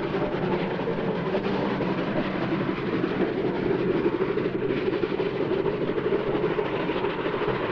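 ČSD class 477.0 three-cylinder steam tank locomotive running past hauling a coach, a steady dense train sound.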